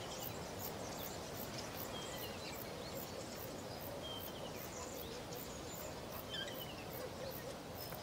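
Faint outdoor bush ambience: a steady soft hiss with a few short, thin bird chirps every couple of seconds.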